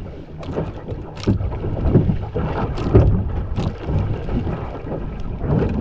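Wind buffeting the microphone over water lapping at a small boat's hull, with several short sharp splashes as a hooked fish is hauled up out of the water.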